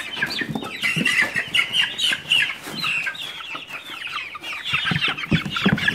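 A flock of young meat-bird chicks peeping together, many short falling calls overlapping without a break, with a few dull knocks about a second in and near the end.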